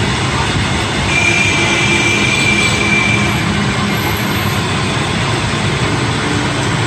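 Mini lathe running: steady machine noise, with a thin high-pitched squeal from about one second in that lasts a little over two seconds.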